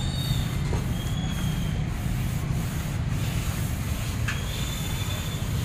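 Steady low rumble of wind on the microphone over street traffic noise, with a few faint high whistles.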